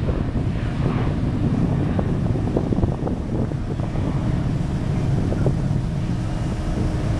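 Boeing 747-400 freighter's four jet engines at takeoff thrust, a steady low rumble as it climbs away, mixed with wind noise on the microphone.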